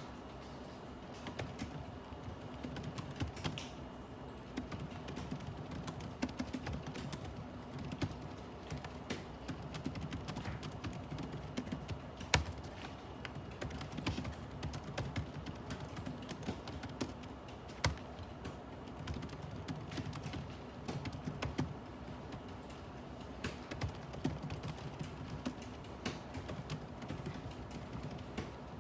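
Typing on a computer keyboard: irregular runs of keystrokes throughout, over a steady low hum.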